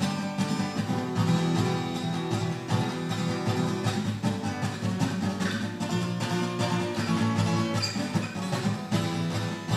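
Guitar playing the instrumental introduction of a song: a steady rhythm of chords.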